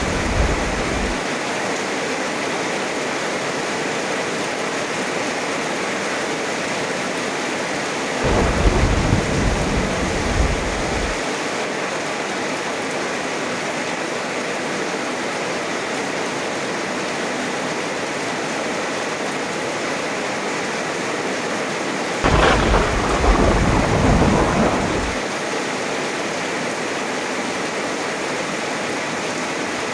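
Heavy rain falling steadily, with three claps of thunder rolling over it: one dying away in the first second, one about 8 s in lasting some three seconds, and a sharper crack about 22 s in that rumbles for about three seconds.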